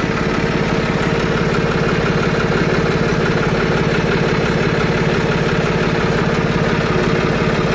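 John Deere 5310 tractor's diesel engine running steadily, heard from the operator's seat, with an even, rapid pulse and no change in speed.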